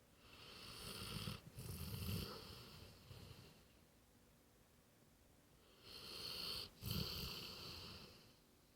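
A sleeping dog snoring: two long snores about six seconds apart, each broken by a brief catch partway through.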